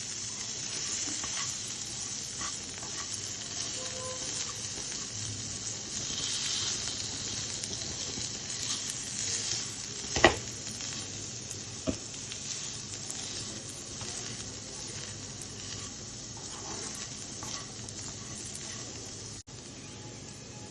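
Potato and pea samosa filling sizzling in hot oil in a pan as it is mashed and stirred, a steady frying hiss with scraping. Two sharp knocks of the utensil on the pan come about ten and twelve seconds in, the first the loudest.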